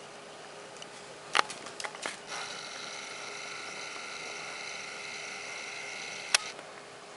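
Camera zoom motor whirring steadily for about four seconds, stopping with a sharp click near the end. A few sharp clicks come just before it starts.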